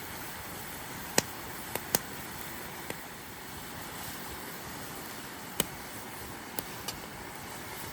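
Wood cooking fire crackling: a steady hiss with sharp pops at irregular moments, about seven of them.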